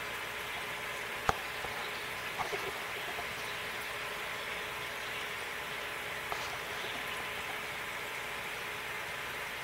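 Steady bubbling of air from aquarium sponge filters and an airstone, the bubbles rising and breaking at the water's surface. One sharp click comes about a second in, with a few faint ticks later.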